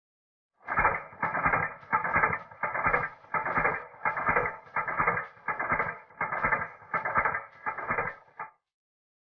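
Background music with a steady pulsing beat, starting about half a second in and stopping about a second before the end.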